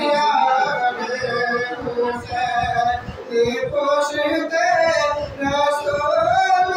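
A man singing unaccompanied devotional verse into a microphone, a melodic chant with long held notes that waver and slide in pitch.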